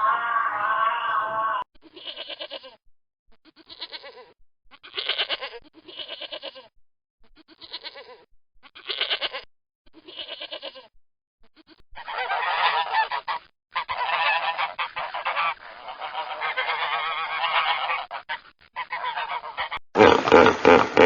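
Geese honking: a run of separate honks about once a second, then a denser stretch of overlapping honks. A different, louder call cuts in near the end.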